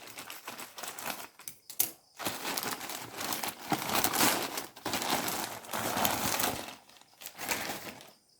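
Motherboard packaging being opened by hand: crinkling and rustling, heaviest through the middle, with a few short sharp crackles early on.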